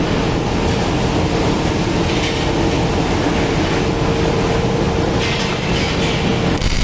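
Electric stick (arc) welding on thin steel: the arc crackles and sizzles steadily with a faint steady hum under it, and the sound changes abruptly near the end.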